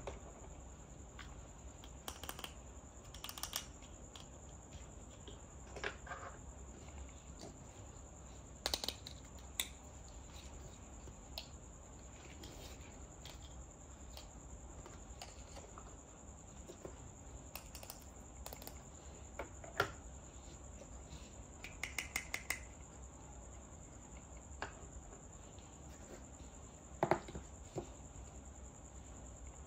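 Small plastic toy kitchen pieces, play dishes, pots, cups and toy food, tapped and clicked into place on a plastic toy kitchen set: scattered light clicks and knocks, some in quick little clusters. A faint steady high whine lies underneath.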